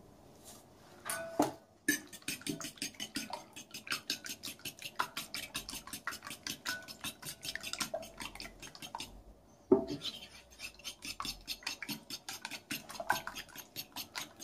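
Fork beating raw eggs in a bowl: a quick, steady clicking of the tines against the bowl. The clicking pauses briefly near the middle and starts again with one louder knock.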